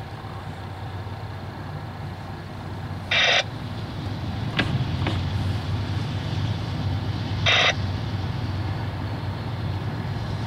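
Low, steady rumble of an approaching CSX freight train's diesel locomotives, slowly growing louder. Two short, loud bursts of hiss cut in, about three seconds in and again near the end.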